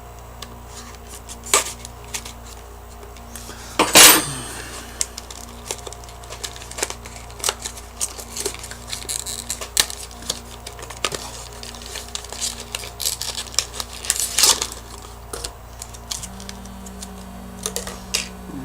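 A small taped cardboard box and its packaging being opened by hand: a run of irregular clicks, taps and rustles, with one louder, longer noise about four seconds in.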